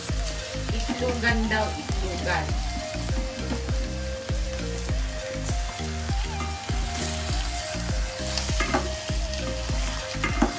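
Whole squid sizzling in a hot stainless steel pot with sautéed onions, stirred with a ladle, with a few light knocks of the ladle against the pot.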